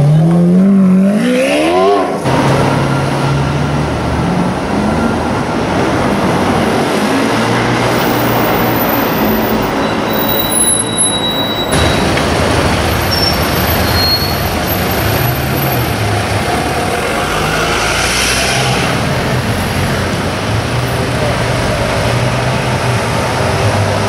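Lamborghini Aventador's 6.5-litre V12 revving, its pitch climbing for about two seconds before dropping away. Then a steady low engine note as the Aventadors move slowly through city traffic, with street noise around them.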